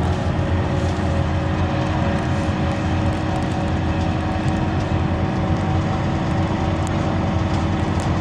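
Cabin noise of a Scania Citywide LE 12M city bus driving at steady speed: an even engine and drivetrain hum with a few steady tones, over road and tyre noise, heard from inside the passenger compartment.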